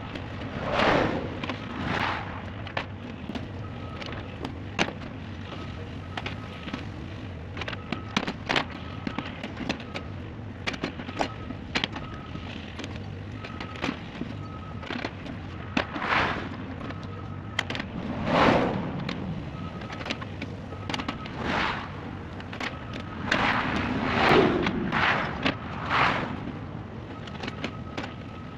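Earthmoving machine running steadily while moving dirt, with a repeated beeping and many clanks and knocks. Several louder noisy surges come about a second in and again around two-thirds of the way through.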